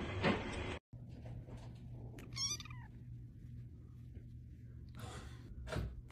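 A kitten gives one short, high meow that wavers and falls in pitch, about two and a half seconds in. Two brief soft rustling noises follow near the end.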